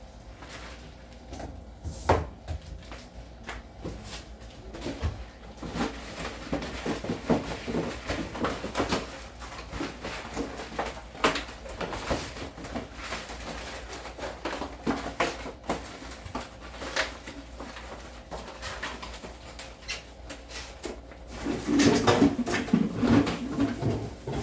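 Household clatter: a string of knocks and clicks from plastic food containers and cupboard or drawer fittings being handled during kitchen cleaning. It gets busier and louder near the end, over a low steady hum.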